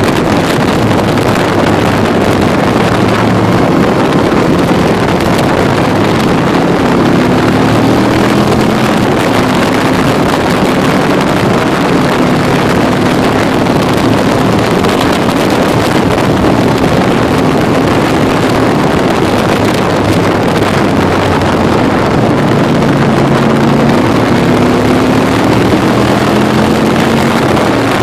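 Can-Am Spyder engine running at road speed under heavy wind rush on the microphone, its pitch climbing twice as it speeds up.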